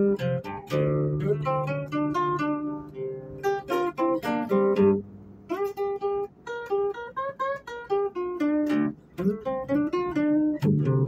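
Acoustic guitar playing: quick runs of picked single notes mixed with strummed chords.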